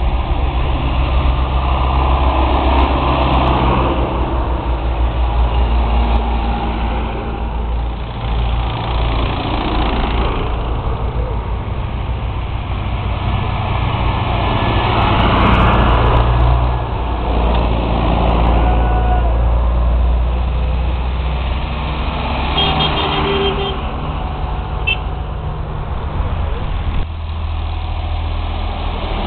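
Tractor engines running as a line of tractors drives past one after another, the engine note swelling as each one goes by, loudest about halfway through.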